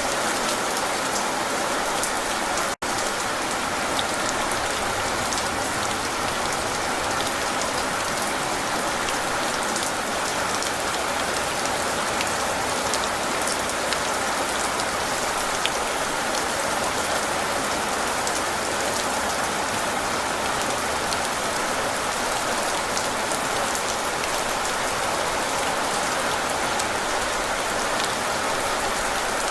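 Steady rain falling, an even hiss with scattered drop ticks. It cuts out for an instant about three seconds in.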